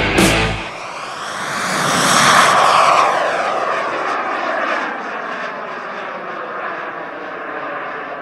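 Small jet turbine of a model glider flying past, a rushing whine that swells to its loudest about two to three seconds in and then slowly fades.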